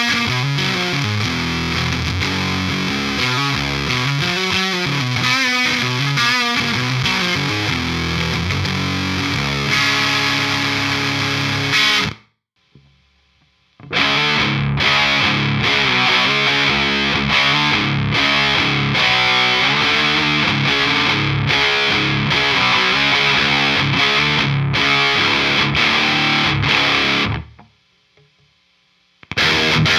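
High-gain distorted electric guitar played through the Acheron amp-simulator plugin, riffing. It breaks off about twelve seconds in and again near the end, and the middle riff is chopped by many brief stops.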